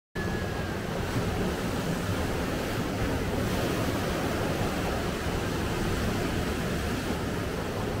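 Sea surf washing steadily onto a sandy beach, with wind on the microphone.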